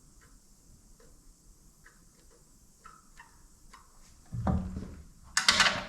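Faint, scattered light ticks and scratches of a steel scribe and small hand tools on metal, then two louder clattering knocks of tools or parts being handled near the end.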